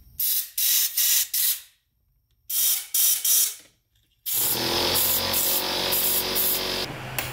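Pressurised spray hissing in short bursts, about six in the first four seconds, then one continuous spray of about two and a half seconds, with a low hum underneath near the end.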